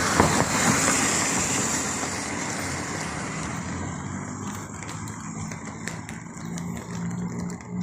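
Road vehicle on a rain-wet street: a loud tyre hiss that fades over the first few seconds, leaving a low engine hum.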